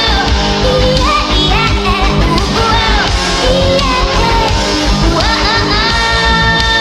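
Sped-up pop song: a male voice singing a gliding melody over a steady beat and guitar, played at 1.3 times speed with an underwater-style muffling effect.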